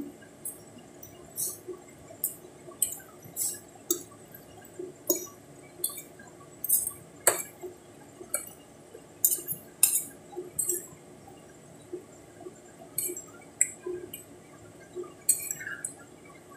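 Two metal forks mixing and lifting saucy instant noodles on a ceramic plate: irregular wet squishing and light clinks of fork against plate, with a couple of sharper clinks partway through.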